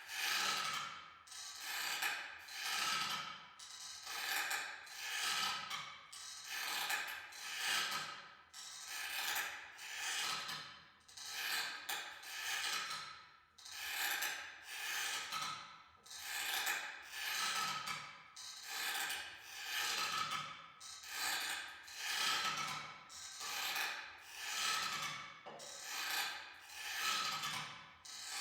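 Old rocking chair creaking as it rocks back and forth, one long creak about every second in a steady rhythm.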